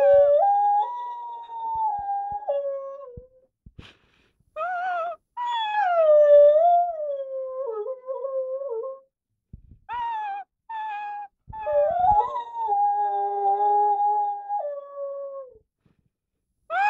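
Young Rottweiler howling: three long drawn-out howls whose pitch slides up and down, with short yelping cries between them.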